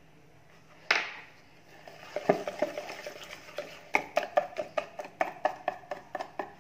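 A stainless-steel wire whisk beating melted ghee into gram flour in a plastic bowl, its wires clicking against the bowl in quick, even strokes of about four to five a second. There is one sharp knock about a second in, before the whisking starts.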